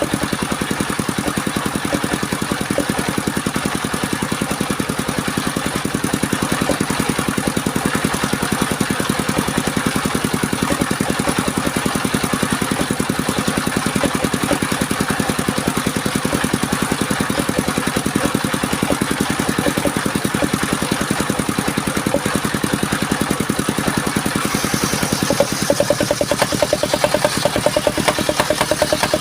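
Engine of a mobile circular sawmill running steadily, with a fast even pulse. A higher tone and hiss join near the end.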